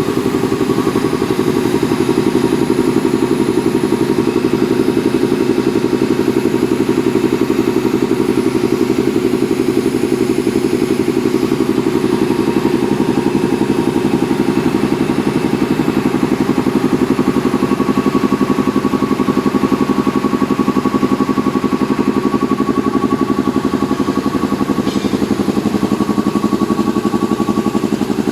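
Air compressor running steadily, with a fast, even pulse.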